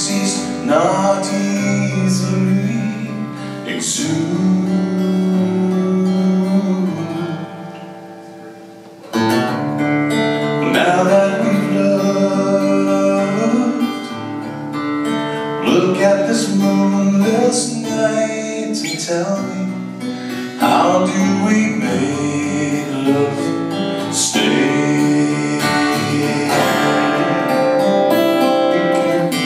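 Steel-string acoustic guitar strummed in a live song, with a man singing along. The playing dies down to a fading chord about seven seconds in, then the strumming comes back strongly about two seconds later.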